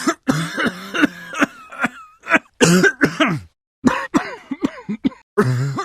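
A person coughing over and over in short bursts, a dry, heavy cough. The pulmonologist takes it for the cough of acute bronchitis in a common viral respiratory infection.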